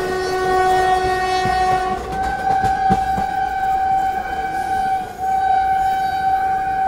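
Indian Railways train horn blowing a long blast. For about two seconds it sounds a chord of several notes; then the lower note drops out and a single tone is held, with a brief break about five seconds in. Wheel clatter runs underneath.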